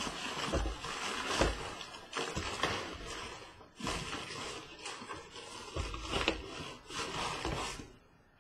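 Trading-card packaging being handled and torn open: irregular crinkling and rustling of cardboard and pack wrappers, with a few sharp knocks, dying away near the end.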